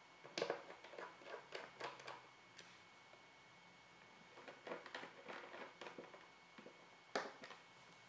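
Screwdriver turning the screws of an outlet faceplate: faint clicks and scrapes in two short runs, first at the top screw and then at the bottom one, with a single sharper click near the end.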